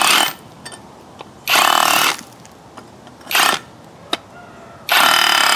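Avhrit cordless hammer drill in chisel (hammer-only) mode, a masonry drill bit hammering into a concrete block in short trigger bursts. It stops just after the start, runs for about half a second about 1.5 s in and more briefly about 3.3 s in, then runs steadily again from about 5 s in, chipping through the block.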